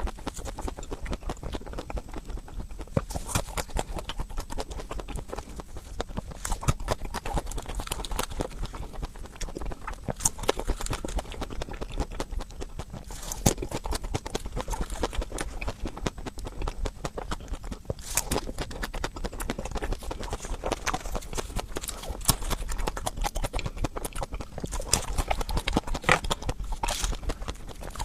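Crunchy ice cream being bitten and chewed: a dense, irregular run of crisp crackles and clicks, with a few louder crunches.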